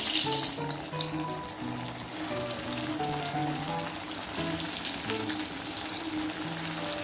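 Sabudana vadas deep-frying in hot oil in a kadhai: a continuous sizzle with fine crackling, loudest at the very start just after a vada goes into the oil. Background music with a simple melody plays under it.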